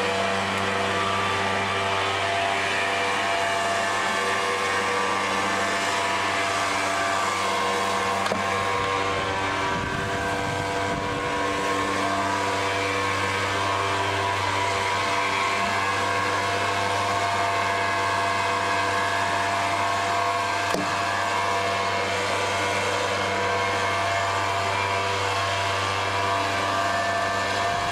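Gas-powered blower running steadily: a constant engine drone that holds one pitch.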